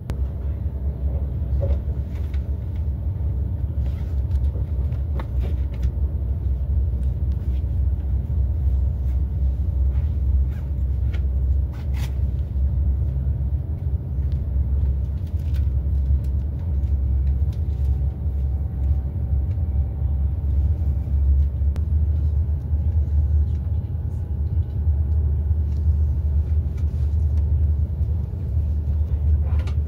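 Steady low rumble inside the passenger car of an ICE high-speed train running at speed, with a few faint clicks now and then.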